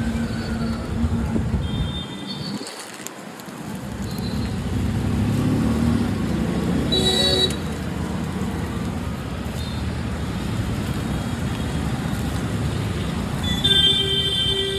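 Steady street traffic with engines running, a short vehicle horn toot about halfway through and a longer, louder horn blast near the end.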